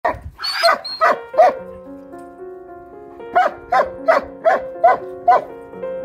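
Dog barking in two runs: four quick barks at the start, a pause, then six evenly spaced barks about a third of a second apart, over background music.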